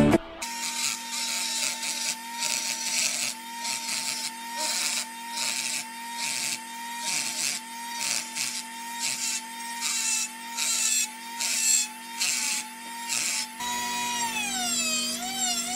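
Rotary tool (Dremel) on a flex shaft running with a steady whine, a Rotozip tile-cutter bit grinding grooves into a wooden stick in short repeated passes, each pass adding a rasping hiss. Near the end the motor's pitch drops and wavers.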